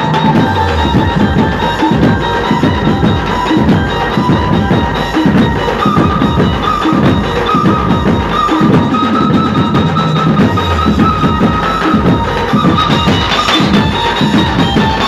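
Loud Dhumal procession band music played over a loudspeaker system: dense drumming with a held, high melody line over it.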